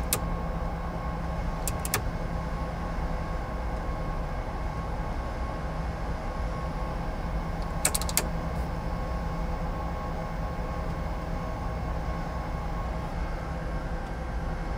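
Steady cockpit hum of a parked jet with both engines idling and the APU running, carrying several constant whining tones. A few light clicks come about two seconds in and again about eight seconds in.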